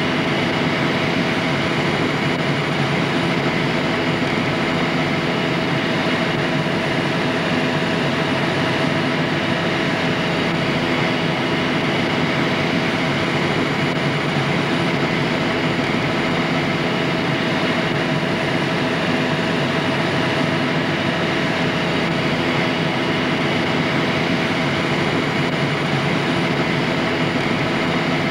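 Helicopter in flight heard from inside the cabin: a loud, steady drone of engine and rotor with several held tones, unchanging throughout.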